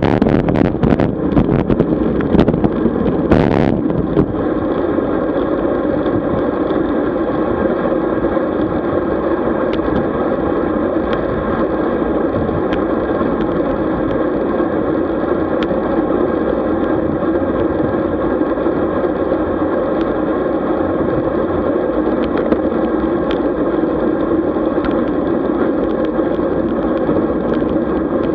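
Steady road noise from a camera riding along on a road bike: a constant droning hum over rumble, with a few knocks and a brief rush of wind in the first few seconds.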